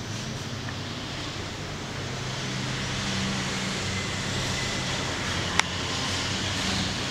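Steady background noise, a hiss with a low hum under it, and a single sharp click about five and a half seconds in.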